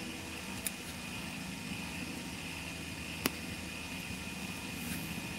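Steady mechanical hum with a faint constant high whine, heard from inside a parked van, broken by two short clicks about two and a half seconds apart.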